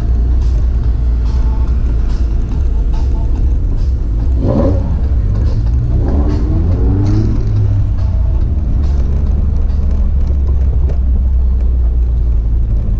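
Toyota 4A-FE 1.6-litre four-cylinder engine running as the car moves at low speed, heard from inside the cabin as a steady, heavy low rumble.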